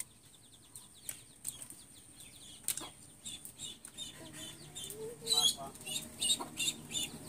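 Chickens calling in short, repeated notes that start about three seconds in and come faster and louder after about five seconds. Under them come small sharp clicks of freshwater snail shells being handled and broken by hand.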